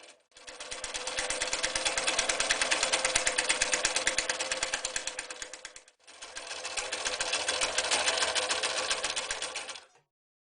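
Bernina Record 730 electric sewing machine stitching in two runs, each speeding up and then slowing to a stop, with a fast even stitch rhythm; it falls silent near the end.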